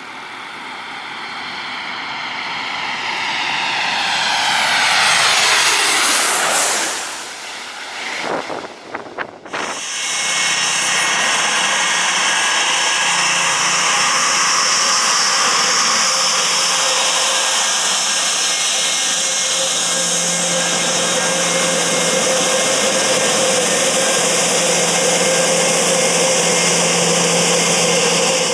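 Jet airliner passing low overhead: its engine noise builds for several seconds, peaks about six seconds in and slides down in pitch as it passes. After a brief dip, steady loud jet engine noise with a held tone starts suddenly and continues.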